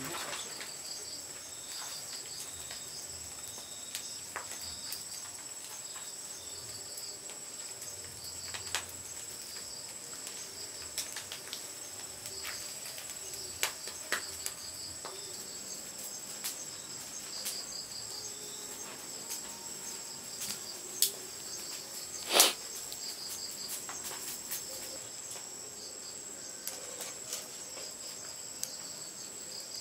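Insects chirping steadily: a high continuous whine with pulsing trills just below it. Scattered sharp clicks run through it, and one loud snap comes about two-thirds of the way in.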